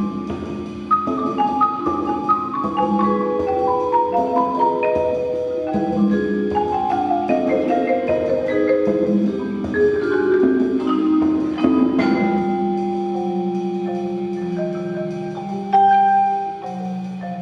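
Percussion ensemble playing mallet keyboard instruments such as marimba and xylophone, with quick runs of notes that step downward in pitch. A loud struck accent rings out about twelve seconds in, followed by held low notes and another loud entry near the end.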